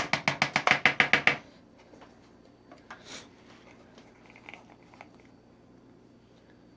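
A fast, even run of about a dozen sharp taps, about eight a second, lasting about a second and a half. After it come a few faint scattered handling clicks.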